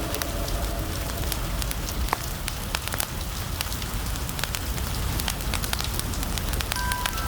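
Fireplace crackling: sharp, irregular pops over a steady hiss of rain, with a steady low rumble underneath.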